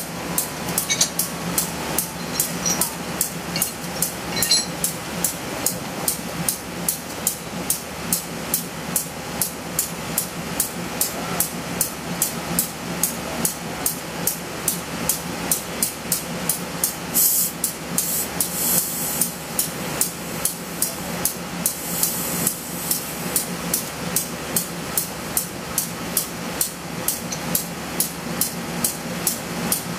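CC201 diesel-electric locomotive idling close by, a steady low running hum with a sharp, even ticking knock about three times a second.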